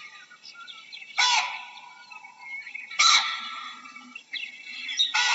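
Baboon giving three loud, harsh calls about two seconds apart, with faint chirps in between.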